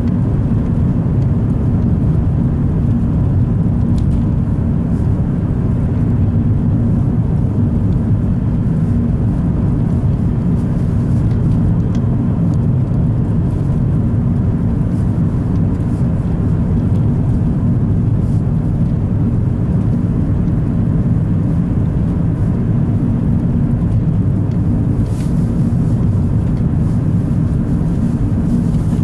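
Steady car cabin noise while driving at an even speed: engine and tyre rumble, low and unchanging.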